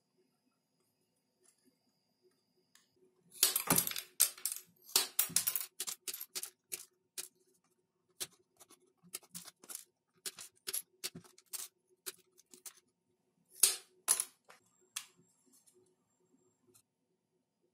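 Side cutters snipping through wooden popsicle sticks: a series of sharp woody snaps and clicks. They come thick and fast a few seconds in, then single snaps, and two loud ones again later on.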